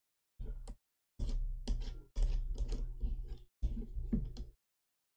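Hands fitting a plastic propeller onto a drone motor shaft and threading the prop nut down by hand: light, irregular clicks and rattles in four short bursts.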